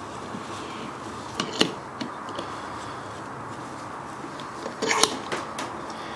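A few sharp clicks and knocks of things being handled at a workbench vise, two louder clusters of them about a second and a half in and near the five-second mark, over a steady background hiss.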